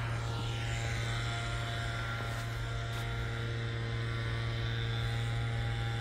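A steady low hum with faint overtones, as from a motor or electrical equipment running.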